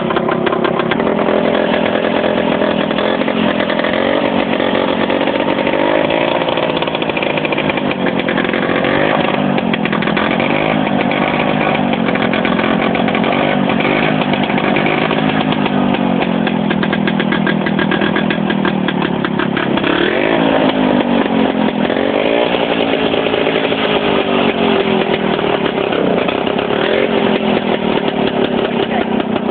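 Small tractor engine running under load while pushing snow with a front V-plow blade, its pitch rising and falling again and again as the revs change.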